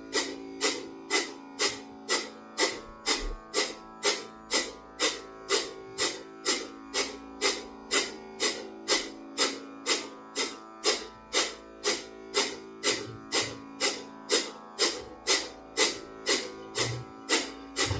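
Kapalabhati breathing: short, forceful nasal exhalations, about two a second, each a sharp puff of air, over soft background guitar music.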